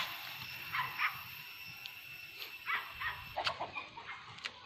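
A few short animal calls, scattered through the first three seconds or so, then two sharp knocks near the end.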